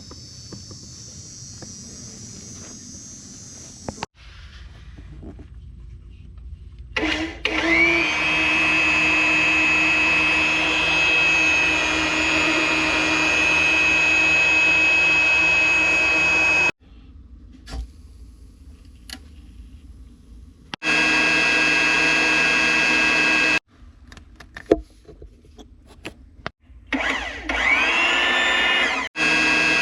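Handheld electric power tool on a foundation repair job, its motor spinning up with a rising whine and then running at a steady high pitch; this happens twice, in short clips that cut in and out abruptly.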